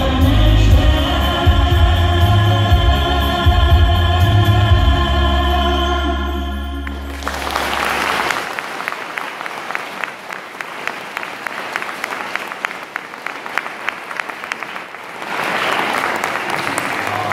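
A male singer holds the song's final note over backing music with a deep bass, which ends about seven seconds in. An audience then applauds, the clapping swelling again near the end with some music coming back in under it.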